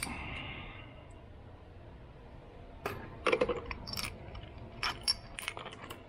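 Light metallic clicks and clinks of a hand tool and the axle hardware knocking against an e-bike hub motor, scattered from about three seconds in after a quiet stretch.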